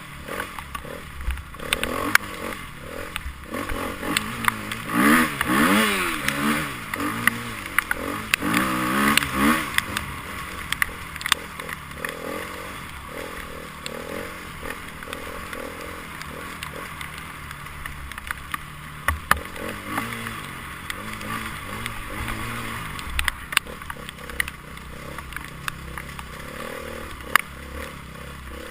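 Enduro motorcycle engines revving up and down in quick rising and falling sweeps between about 4 and 10 seconds in, then running lower, with scattered sharp clicks and clatter throughout.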